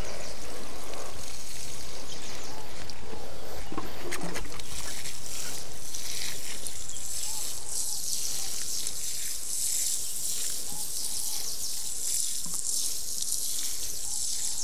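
Water pouring and splashing onto soil while vegetables are watered by hand: a steady rushing hiss that grows brighter about six seconds in.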